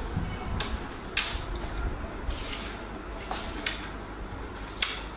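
About half a dozen light, sharp clicks and taps at uneven intervals over a low, steady room rumble.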